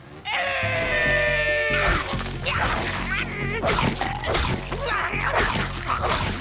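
Cartoon sound effects of frantic, messy eating, a busy run of wet splattering and gobbling noises, over lively background music. It opens with a falling pitched sound.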